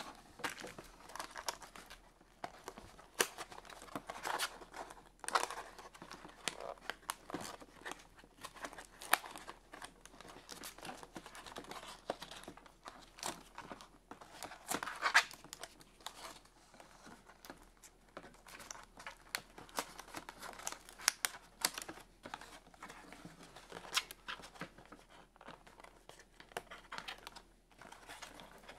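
Hands working a cardboard doll-box insert: irregular clicks, scrapes and small tears of cardboard and tape as plastic ties are pulled free, with some crinkling of plastic.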